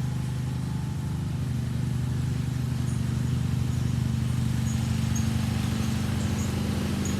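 John Deere riding lawn mower engine running steadily under mowing load, a low even hum with a fast regular pulse, slightly louder from about halfway through.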